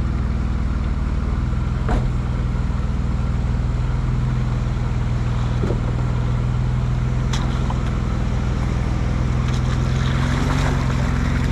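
A 2005 Jeep Liberty's engine running steadily at trail speed, a loud low drone that rises slightly in pitch near the end, with a few sharp knocks about two and seven seconds in.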